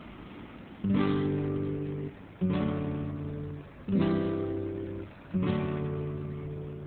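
Acoustic guitar strumming four single chords, about a second and a half apart, each left to ring and fade before the next. A faint hiss comes before the first strum.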